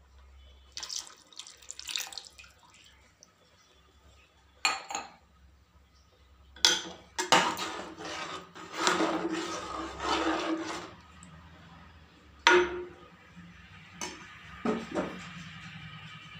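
Milk poured from a steel cup into a steel pot, splashing for a few seconds in the middle, with steel vessels clinking and knocking against each other before and after.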